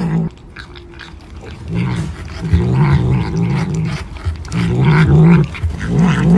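A cat growling in low, wavering bursts while it clutches and licks at a food cup, the sound of a cat guarding its food. The growls start about two seconds in and come in repeated bursts.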